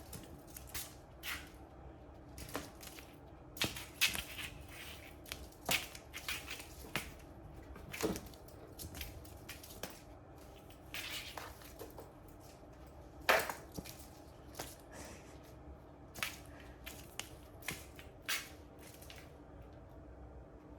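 Cats scrambling after a moving ribbon toy: scattered rustles, scuffs and light knocks at irregular intervals, the loudest about two-thirds of the way through.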